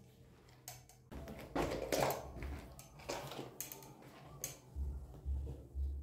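Spin mop with a round microfibre head wiped across a tiled floor: irregular swishing, rubbing strokes starting about a second in, with light clicks and knocks. Low thumps come near the end.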